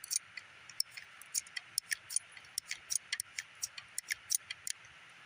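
Light metallic clicking from a Heritage Rough Rider single-action .22 revolver being cleared after firing: the cylinder is turned notch by notch with the loading gate open and the spent cases are pushed out. The clicks are irregular and come several a second.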